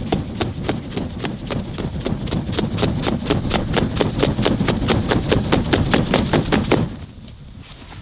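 A hand-held fan beaten rapidly over a campfire to fan the flames: quick rhythmic whooshing flaps, about five strokes a second, that stop abruptly about seven seconds in.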